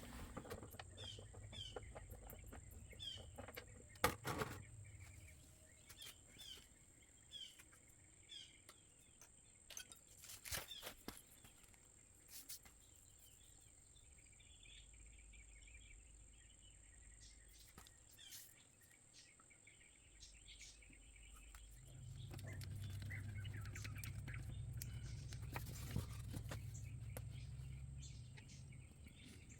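Faint bird chirping: short, falling chirps about once a second for the first several seconds, with a few sharp clicks. Later a low, steady hum rises for about six seconds and fades.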